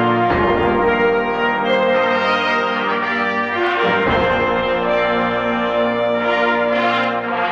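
Concert band playing loud sustained chords with the brass to the fore, the harmony changing about a third of a second in and again about four seconds in.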